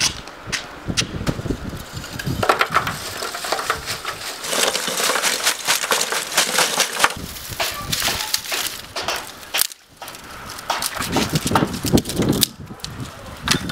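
Lump charcoal tumbling out of a sack into a metal mangal grill box, a dense clatter of hard pieces clinking against each other and the metal. About ten seconds in, dry grapevine branches are snapped by hand with sharp cracks.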